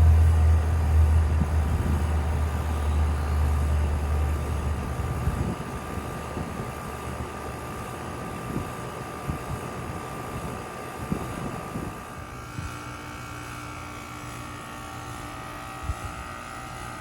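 Steady mechanical hum with a thin high whine. A deep, loud hum fades out about five seconds in, and new steady tones join around twelve seconds in.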